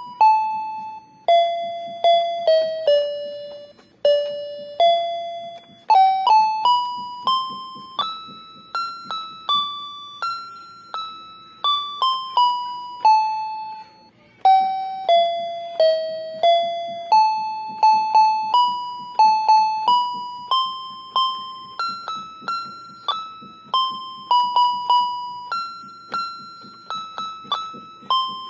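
Background music: a simple melody of single notes, each struck and fading, about two or three a second.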